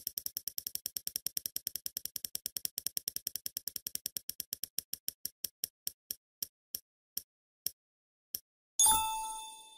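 Spinning-wheel ticking sound effect: rapid clicks, about a dozen a second, slowing steadily to single ticks more than half a second apart as the wheel winds down and stops. A bright chime rings out near the end and fades.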